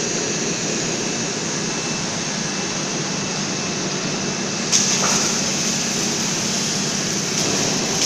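Steady whirring, hissing machine noise from a two-torch automatic gantry beam welding machine running. It grows louder about five seconds in.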